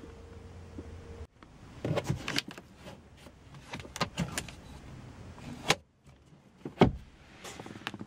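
Sharp plastic clicks and knocks from a 2006 Mini Cooper S's sun visor and overhead cabin trim being handled, a few scattered clacks over several seconds. A faint steady hum at the start cuts off abruptly.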